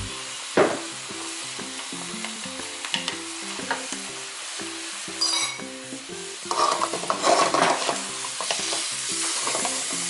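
Seafood stir-fry sizzling in a metal wok while a wooden spatula stirs and scrapes it, with louder bursts of stirring between about six and eight seconds in.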